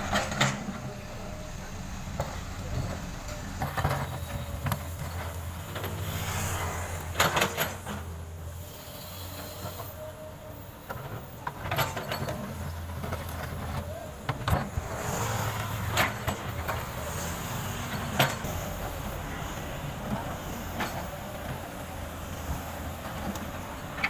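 Komatsu PC200 hydraulic excavator working: its diesel engine runs steadily under a scattering of sharp knocks and scrapes as the bucket breaks up and moves asphalt rubble.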